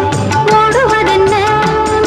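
Tamil film song playing: a long held melodic note over a steady percussion beat.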